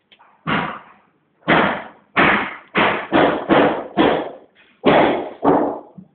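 A run of about nine loud knocks in quick, irregular succession, each dying away in about half a second.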